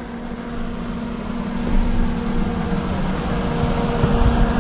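A steady machine hum with one constant tone over a rushing noise and low rumble, slowly growing louder.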